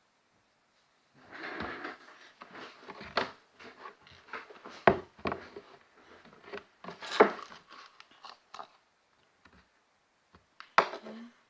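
Objects being handled on a hard surface: rustling and rubbing broken by several sharp knocks, loudest about five and seven seconds in and once more near the end.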